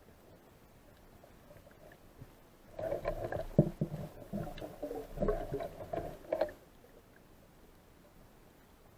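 Water gurgling and sloshing around an underwater microphone, in an irregular run of bubbly bursts lasting about four seconds, starting about three seconds in.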